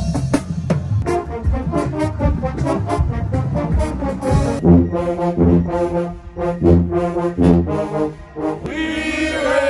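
College marching band playing: marimbas and drums strike out a rhythm, and about halfway in the brass, sousaphones among them, comes in with long held chords.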